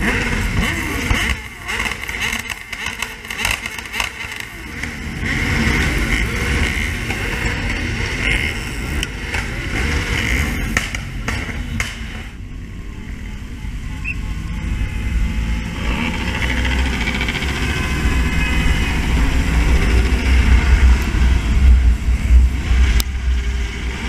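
A large pack of motorcycles riding together through city streets, engines running and rising and falling, with the rider's own Honda CB600F Hornet's inline-four among them. The low rumble grows heavier in the second half as the pace picks up.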